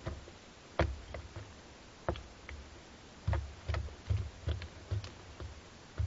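About a dozen irregular knocks and taps on a wooden nest box as barn owl chicks shuffle and step about on its wood-shaving floor. Each knock is a dull thump with a light click, the loudest about a second in and several closer together in the second half.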